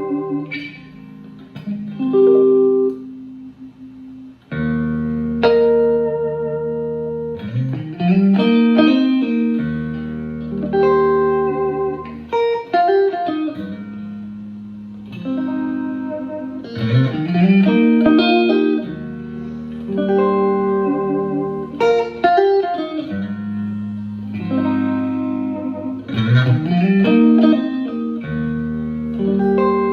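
Electric guitar played through a Fender Blues Junior tube amp with its reverb turned off and the middle scooped. A repeating chord riff of held chords, each phrase ending in notes that slide up, comes round about every four and a half seconds.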